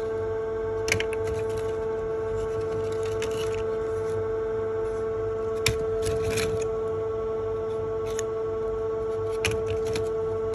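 Dry Vietnamese agarwood shells rustling and clicking against each other as a hand sifts through a pile, with sharper clicks about a second in, around six seconds and near nine and a half seconds. A steady pitched hum runs underneath.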